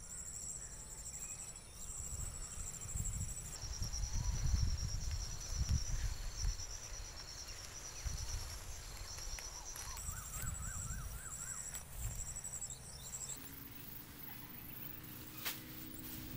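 Insects chirping in repeated high pulsed trains over a field, with a low rumble that swells and fades, strongest about four to six seconds in. A low steady hum joins about thirteen seconds in.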